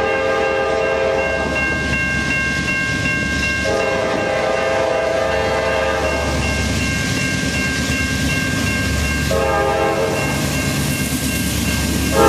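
Norfolk Southern diesel freight locomotive's air horn sounding the grade-crossing signal as it approaches: two long blasts, a short one, and a final long one starting near the end, when it gets much louder. Under it, the steady ring of an electronic crossing bell and the low rumble of the train.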